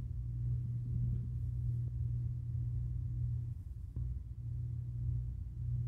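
Steady low background hum, with a faint click about four seconds in.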